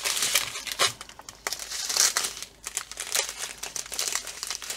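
Thin plastic crinkling in irregular bursts as hands handle the small plastic bags of diamond painting drills and the canvas's clear protective film.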